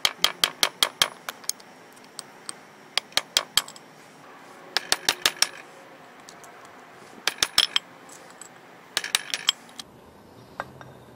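Steel screwdriver tip picking and scraping at the trigger-guard opening of a rough cast-aluminum gun: short bursts of rapid sharp metallic clicks with pauses between them.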